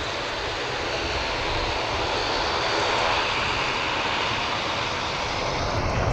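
Boeing 737-800 climbing away after takeoff, its two CFM56-7B jet engines making a steady, even rush of noise.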